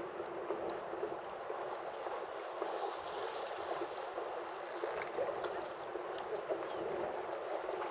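Steady wash of lapping water, with a few light clicks around the middle.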